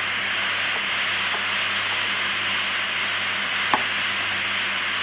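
Small handheld gas torch hissing steadily as its flame heats a titanium piece to bring up heat-tint oxide colours, with one sharp click about three-quarters of the way through.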